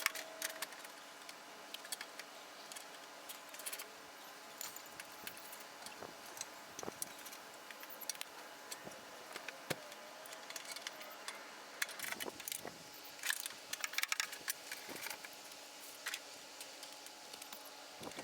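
Irregular small metallic clicks, clinks and rattles of tools and parts being handled while putting a car's front end back together.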